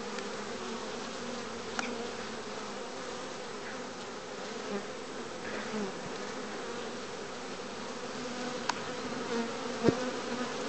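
Honey bees buzzing in flight around the hive entrance, a steady hum from a busy colony with foragers streaming in carrying pollen. A couple of brief clicks break in, the sharpest near the end.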